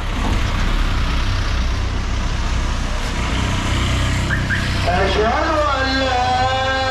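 A light box truck's engine running as it drives close past on a street, with traffic noise. About five seconds in, a wavering melodic voice rises over it.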